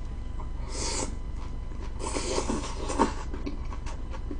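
A person chewing a mouthful of leafy sprout and salmon salad close to the microphone: soft crunching and wet mouth noises. There is a short hiss about a second in and a longer stretch of crunching around two to three seconds.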